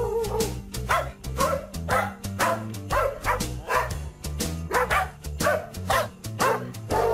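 Novelty Christmas music in which a tune is carried by dog barks tuned to pitch, about two barks a second, over a backing track with a steady beat.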